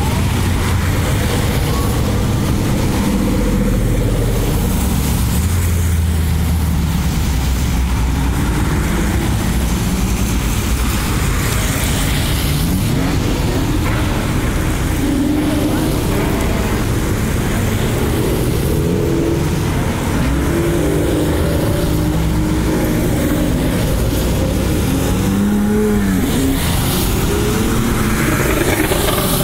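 A procession of sports cars (a Corvette, an Alfa Romeo 4C, an Aston Martin Vantage and Porsche 911s) driving past one after another, engines running steadily, with several revs rising as cars pull away.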